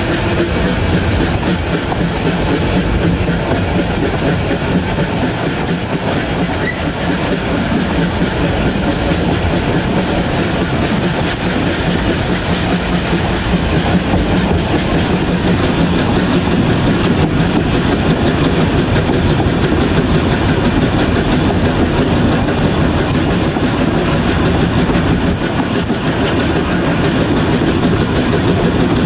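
Narrow-gauge train running steadily along the track, its wheels clattering over the rail joints.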